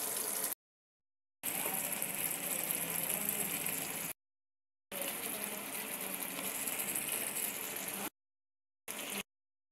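Masala-and-yogurt gravy with fried aubergine slices bubbling and sizzling steadily in a pan. The sound cuts out abruptly to dead silence several times.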